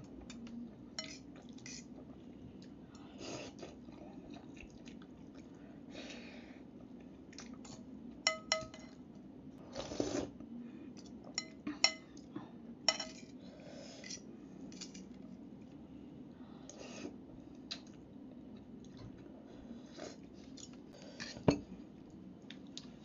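Metal fork clinking and scraping against a ceramic bowl while eating noodles. Sharp clinks come at irregular intervals, and some ring briefly. The loudest come around the middle and near the end.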